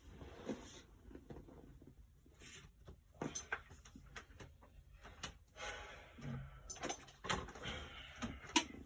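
Scattered clicks, knocks and short rustles of tools and small objects being handled on a workbench, with a louder knock near the end.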